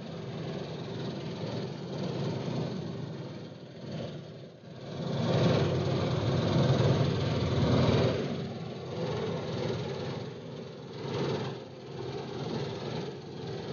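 Dasmesh combine harvester cutting wheat, heard from the open driver's seat: engine and threshing machinery running under load in a steady mechanical drone, which swells louder for a few seconds midway.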